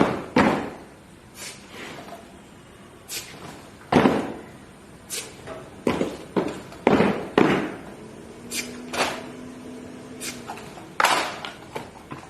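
Sharp knocks and stamps of cadets' rifle drill movements: hands slapping rifles, rifle butts and boots striking the ground, about a dozen separate impacts at uneven intervals, each with a little ring after it.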